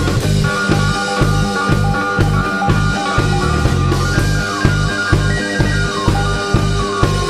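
Rock band playing live: electric guitars over a drum kit keeping a steady beat.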